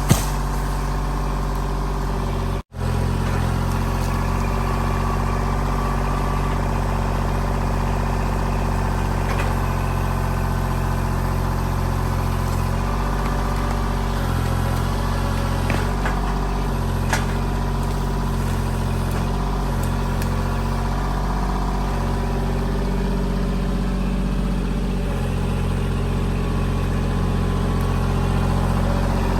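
Kubota L2501 compact tractor's three-cylinder diesel engine running steadily as it works, with a short break in the sound about three seconds in.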